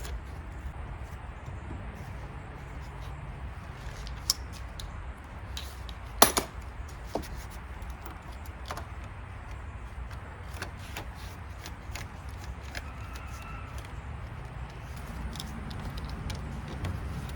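Scattered light metallic clicks and clinks of hand tools working on a car battery's terminals and clamps, with one sharper knock about six seconds in, over a steady low background rumble.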